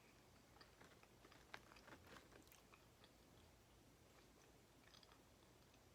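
A person chewing nacho cheese fries, faintly, with scattered small mouth clicks that cluster in the first half and come again briefly near the end.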